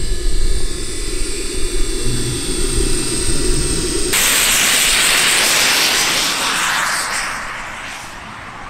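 Small model jet turbine on a large radio-controlled glider, running with a steady whine of several high tones over a hiss. About four seconds in the sound changes abruptly to a broad rushing hiss, which fades away near the end as the glider moves off.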